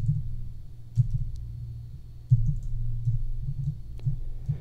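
Typing on a computer keyboard: irregular, dull keystrokes with light clicks, the sharpest about a second in and again a little past halfway.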